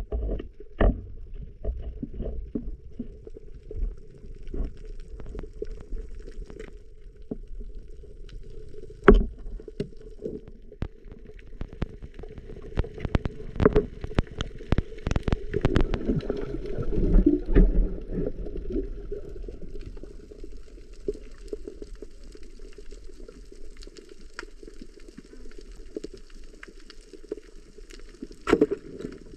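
Underwater sound through a diving camera: a muffled, steady churn of moving water with scattered clicks and knocks. The churning swells for a few seconds in the middle, and single sharper knocks come about nine seconds in and again near the end.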